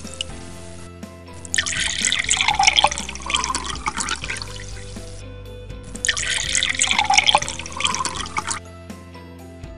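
Two pouring-water sounds, each lasting about three seconds, as a toy teapot is tipped over one cup and then another, over steady background music.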